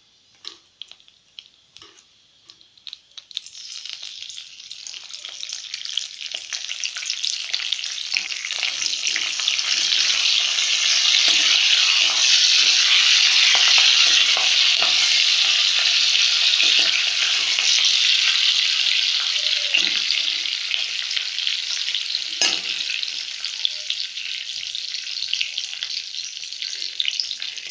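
Curry leaves sizzling in hot oil with mustard seeds and cumin in a kadhai, the tempering (tadka) stage. The sizzle starts about three seconds in, is loudest in the middle and eases off toward the end. There is a single sharp knock a little after twenty seconds in.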